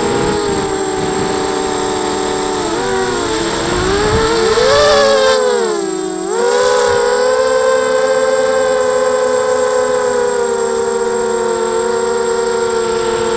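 ZMR 250 mini quadcopter's motors and propellers whining close up, several pitches drifting against each other as the throttle changes. About five seconds in, the whine climbs and gets louder, then drops sharply as the throttle is cut. It comes straight back up and holds a steady whine.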